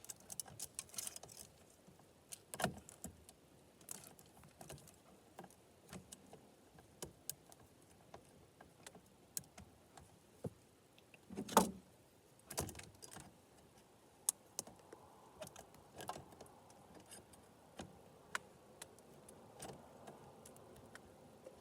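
Chainsaw guide bar and chain being fitted by hand: scattered light clicks and clinks of the chain and bar being handled, with a louder knock about halfway through.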